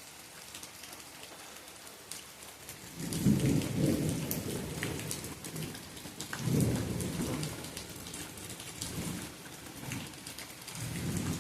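Steady rain falling, with individual drops ticking close by. Loud low rumbles swell up about three seconds in, again past halfway, and once more near the end.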